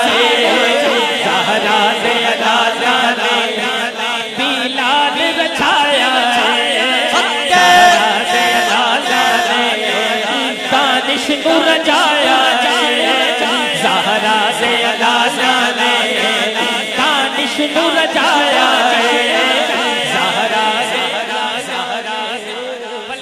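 Men's voices chanting a Punjabi devotional manqabat refrain together into a microphone, loud and continuous. The chanting eases off a little near the end.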